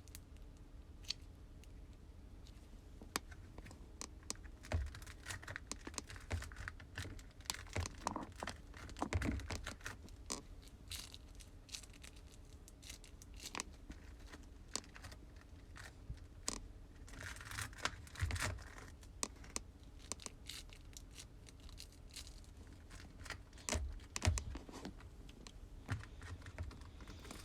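Slime being squeezed and worked by hand, making irregular sharp clicks and pops with a few longer crackly stretches.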